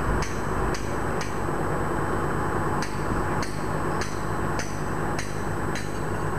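Hammer blows on the steel track of an M113 armoured personnel carrier, sharp metallic strikes about two a second, three at first, then after a short pause six more.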